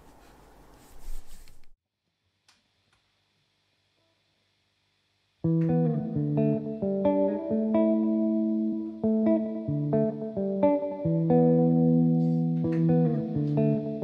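After a moment of faint room noise and a few seconds of dead silence, an electric guitar comes in about five seconds in, playing sustained, ringing chords that change every second or so.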